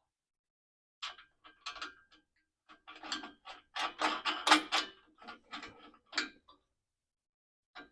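Hand ratchet wrench clicking in quick short runs while a nut on an exhaust pipe clamp is tightened, starting about a second in, busiest in the middle, and stopping near the end.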